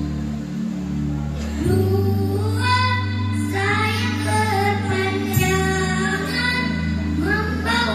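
Children's choir singing a song over instrumental accompaniment, the low chord notes changing about a second and a half in and again about five seconds in.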